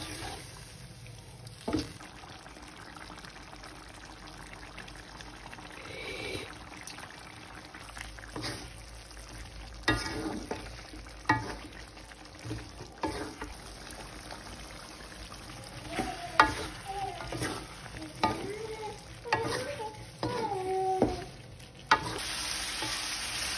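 Chicken pieces in chili sauce simmering and sizzling in a metal wok, stirred with a spatula that knocks and scrapes against the pan several times.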